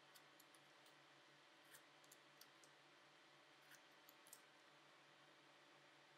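Near silence with faint, scattered light clicks and taps, a dozen or so, from a steel protractor rule and a marker pen against a steel bar held in a vise, over a low steady hum.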